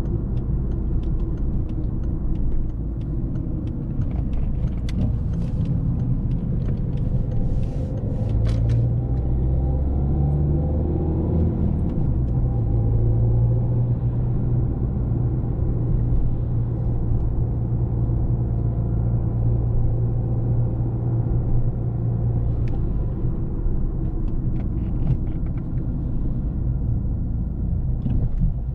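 Volvo S40 1.6D's turbocharged four-cylinder diesel and road noise while driving: a steady low rumble. The engine note rises about eight to twelve seconds in as the car speeds up, then holds steady, with scattered faint clicks over the first several seconds.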